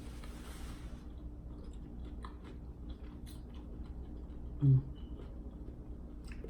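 Close-up chewing and biting of food, with small wet clicks and crunches. One brief, louder low sound breaks in about two-thirds of the way through.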